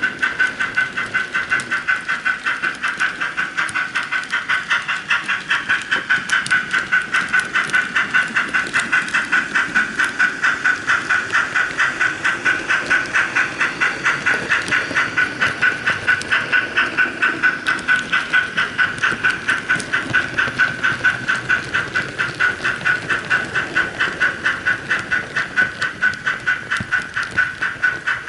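Steady steam-locomotive exhaust chuffing, about three to four beats a second with a hiss on each beat, from the sound system of an HO-scale model of a Belgian Type 12 steam locomotive running at a steady speed.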